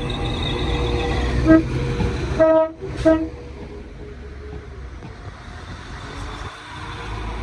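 Train horn giving three short toots, the middle one a little longer, over the low rumble of a train running at the station. The rumble eases after the horn and builds again near the end.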